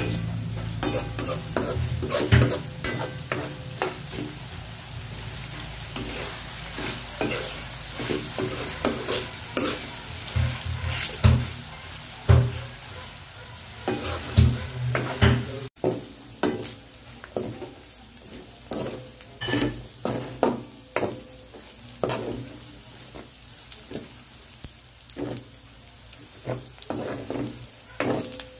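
Chopped duck meat sizzling as it sautés and browns in a wok, with a spatula scraping and knocking against the pan at irregular intervals as it is stirred.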